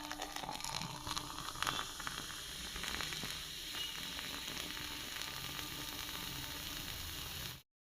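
Carbonated Coca-Cola fizzing: a steady hiss of bursting bubbles with a few sharper crackles in the first few seconds. It cuts off suddenly near the end.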